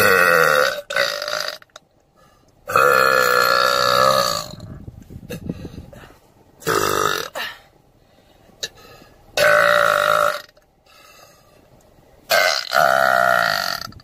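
A woman burping loudly five times in a row, each burp a pitched, wavering belch; the longest, about three seconds in, lasts nearly two seconds.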